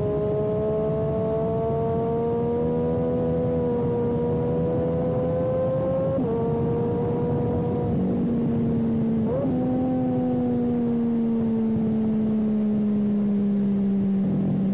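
Motorcycle engine heard onboard at speed over a steady rush of noise: its pitch climbs under acceleration, drops sharply at a gear change about six seconds in, jumps briefly at another gear change just after nine seconds, then falls steadily as the bike slows.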